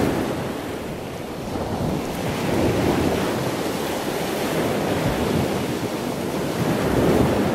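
Ocean surf washing in, a steady rush that swells and eases every few seconds as waves break.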